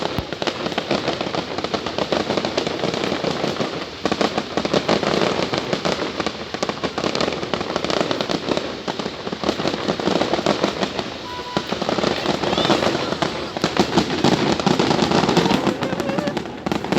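Aerial fireworks display going off without pause: a dense, continuous crackle of rapid pops and bangs from many shells, swelling louder near the end.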